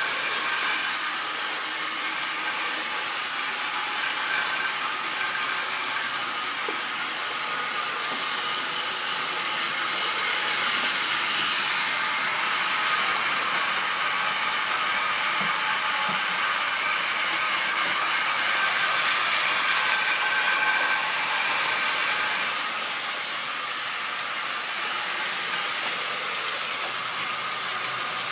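Model train running on the layout: the small electric motor of a model locomotive whines steadily with several high tones. The sound swells in the middle and eases off about 22 seconds in.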